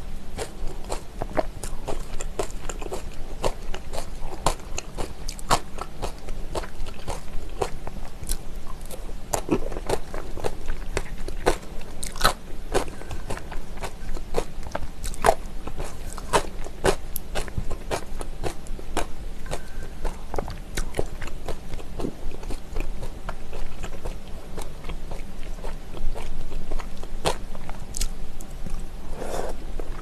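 Close-up chewing and crunching of spicy raw oyster salad with raw onion and peppers: a dense run of sharp, wet crunches and mouth clicks.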